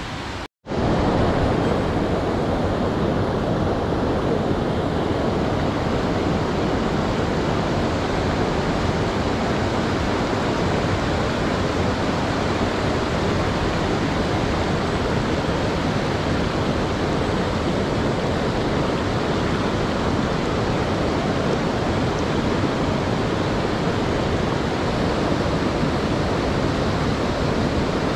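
Steady rush of a boulder-strewn mountain stream's white-water rapids. The sound cuts out for a moment about half a second in, then resumes at the same even level.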